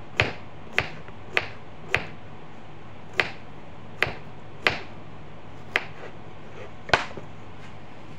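Kitchen knife slicing a cucumber on a cutting board: about nine sharp knocks of the blade striking the board, irregularly spaced half a second to a second apart.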